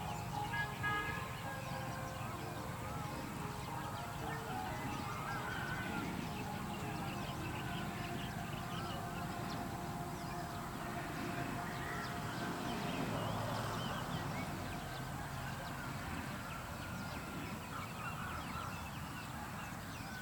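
Farm-field ambience with many birds calling and chirping throughout, over a steady low background noise.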